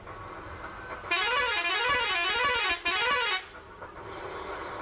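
Bus's musical horn sounding twice, a long warbling blast about a second in and a short one right after: the tone swings up and down in pitch about twice a second. A steady engine and road rumble runs underneath.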